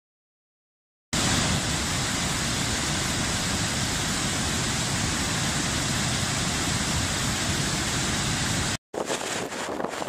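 Silent at first, then the steady, even rush of a river's white-water rapids pouring over rocks. It cuts off abruptly near the end, and gusting wind on the microphone over rough surf takes over.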